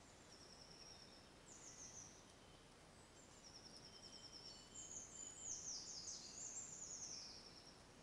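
Faint songbird song in woodland: high-pitched trills and quick descending whistled phrases, several birds overlapping and loudest in the second half, over a steady low hiss.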